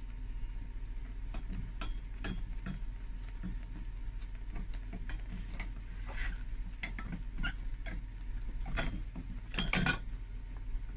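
A steel knife blade scraping and prying under the edge of an old leather footbed, working it loose from the shoe: irregular small clicks and scrapes, with a denser, louder cluster about nine to ten seconds in.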